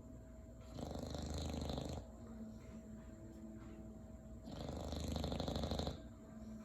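English bulldog snoring: two long, fluttering snores, each lasting about a second and a half, the second coming about four seconds after the first.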